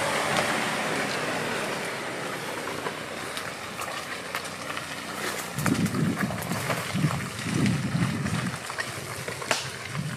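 Land Rover Defender P300, with its 2.0-litre turbo four-cylinder, driving past close on a muddy track and pulling away, its engine and tyre noise fading over the first couple of seconds. About five and a half seconds in come low rumbling surges with scattered crackles, lasting a few seconds.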